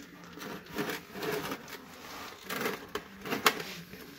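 Gear oil drizzling from a loosened rear differential cover into a drain pan, with irregular clicks and rattles from the cover being worked free and one sharp knock about three and a half seconds in.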